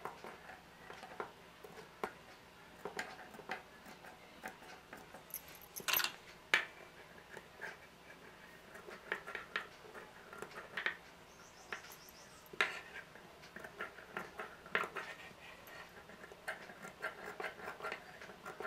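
Steel tailoring shears making small snips into the seam allowance of a curved neckline: short, irregular clicks with a few sharper snips and light fabric handling between them.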